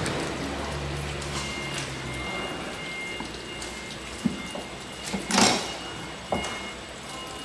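Knife working along a mahi-mahi fillet on a plastic cutting board, with a few sharp knocks and scrapes of the blade on the board, the loudest about five and a half seconds in, over a steady rain-like hiss.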